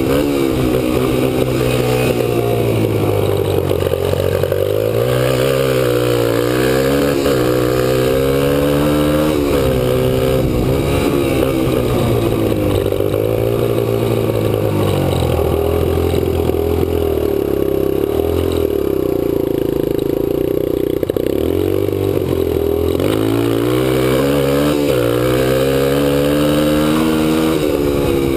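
Kawasaki KLX125 dirt bike's single-cylinder four-stroke engine, running under way and repeatedly revving up and dropping back in pitch. About halfway through it holds one steady pitch for several seconds, then falls away and climbs again.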